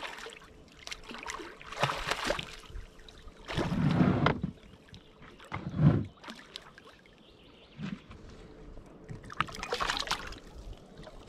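A hooked fish thrashing and splashing at the surface of the water while it is played in, several separate bursts of splashing with a couple of heavier, duller splashes in the middle.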